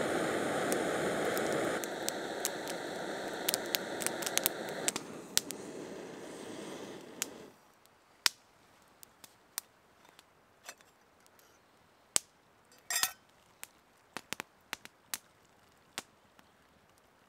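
Backpacking gas-canister stove burning steadily under a pot of water. It steps down twice, as if turned lower, and cuts off abruptly about seven and a half seconds in. After that come scattered light clicks and clinks of the metal pot and lid being handled.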